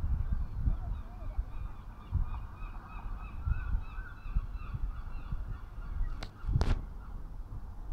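Wind buffeting the microphone in gusts, with birds calling over it in a steady run of short repeated notes. Two sharp clicks come about six seconds in, the second with a low thump.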